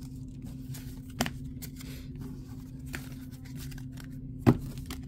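Pokémon trading cards being handled and shuffled: faint rustles and soft clicks, with a sharper tap about a second in and a louder one near the end, over a steady low hum.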